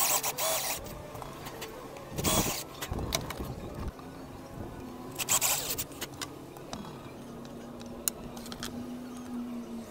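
A cordless drill-driver run in a few short bursts, driving screws for glass-hinge hardware into a wooden cabinet, with a few light clicks of tools on the wood. Soft background music underneath.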